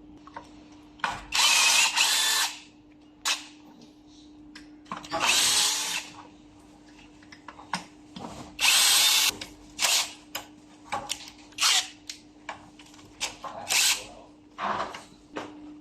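Cordless power drill-driver running in several short runs, three of them about a second long, with clicks and knocks from handling the tool and parts between runs, while fasteners on an electric scooter's motor assembly are worked.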